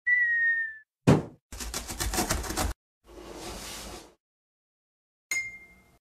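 Cartoon intro sound effects: a whistle that dips slightly in pitch, a sharp thump, a fast rattle, a short rush of noise, then a bright ping that rings out.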